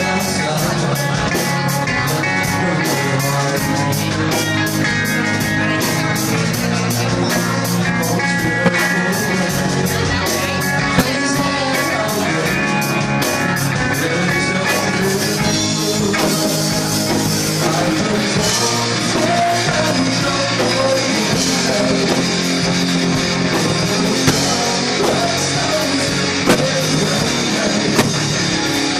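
Rock music with a steady drum beat and singing; the arrangement changes about halfway through.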